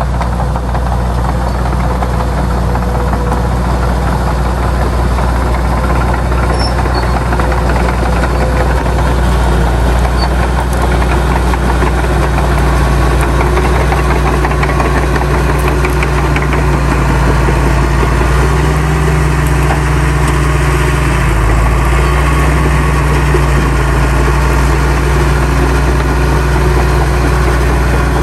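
Heavy diesel engine of earthmoving machinery running steadily under load, with a brief dip in pitch about three-quarters of the way through.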